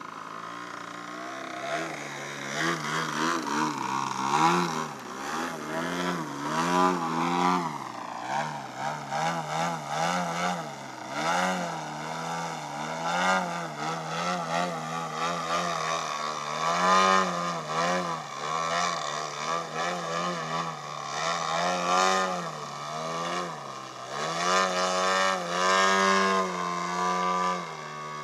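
Engine and propeller of a 3D aerobatic RC model aeroplane in flight, the pitch rising and falling again and again as the throttle is worked through the manoeuvres. It is quieter at first and grows louder about two seconds in.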